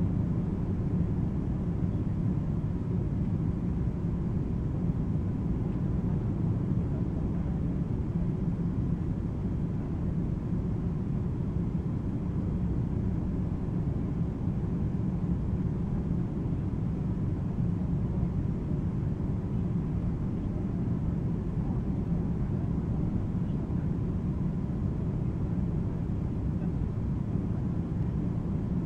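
Steady cabin noise inside an Ilyushin Il-96-300 airliner descending on approach, heard from a seat over the wing: a low rumble of its Aviadvigatel PS-90A turbofan engines and the airflow, with a faint steady whine.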